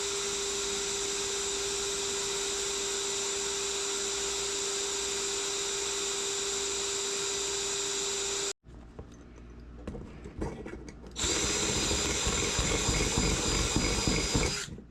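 Electric drill running at a steady speed, boring a small hole through the thin sheet metal of an old lantern. It cuts off suddenly about eight and a half seconds in. After a short pause with some light knocking, it runs again, grinding through the metal for the second hole, until just before the end.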